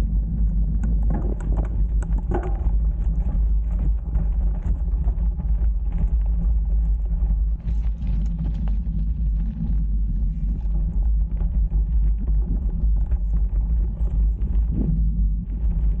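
Mountain bike descending a rough dirt and stone trail, heard through an Insta360 action camera's microphone: a steady low rumble of tyres and wind on the microphone, with many small knocks and rattles as the bike runs over stones.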